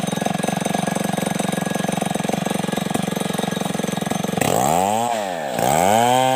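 STIHL two-stroke chainsaw running steadily. After about four seconds its note starts swinging up and down in pitch a couple of times.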